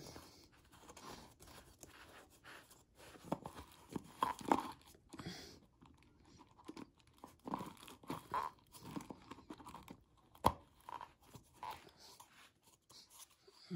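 Screw-on section of a Zéfal hard-plastic tool bottle being twisted onto its threads by hand: a run of short, irregular plastic-on-plastic rasps and creaks, with one sharp click about ten and a half seconds in.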